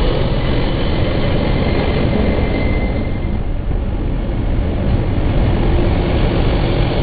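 Diesel railcar running, a loud steady rumble.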